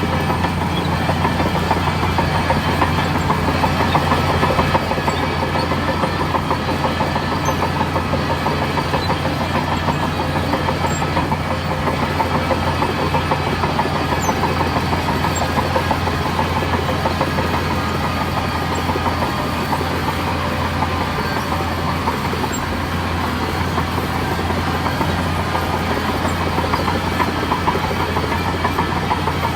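Bulldozer's diesel engine running steadily under load, with a continuous clanking rattle of crawler tracks over a constant low engine hum.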